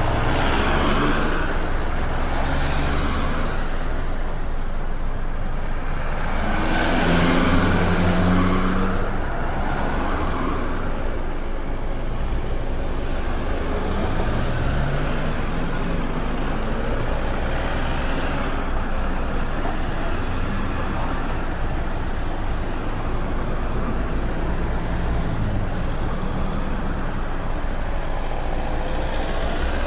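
Busy road traffic: cars, trucks and buses running and passing, a steady hum of engines and tyres with a louder vehicle going by about a quarter of the way in.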